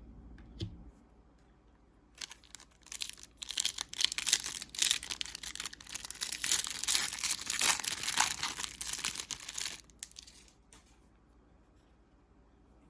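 Plastic wrapper of a trading-card pack being torn open and crinkled, for about eight seconds of dense crackling with a few louder rips. A faint click comes just before it.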